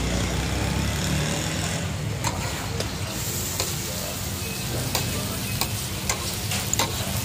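Small minced-meat kababs sizzling in oil on a large flat iron griddle, with a metal spatula scraping and clicking against the griddle as they are turned. A low rumble fades out about a second in.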